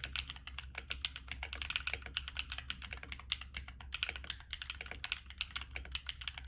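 Continuous fast typing on a Womier K66 stacked acrylic mechanical keyboard with stock Akko Cream Yellow Pro linear switches, ASA profile keycaps and a tape mod: a steady stream of keystroke clacks, many per second.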